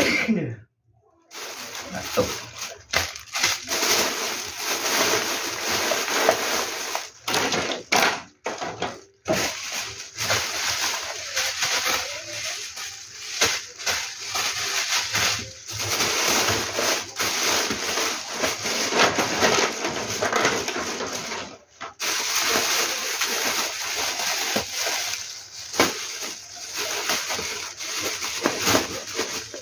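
Plastic snack wrappers and bubble wrap crinkling and rustling as they are handled, in irregular crackling bursts with brief pauses.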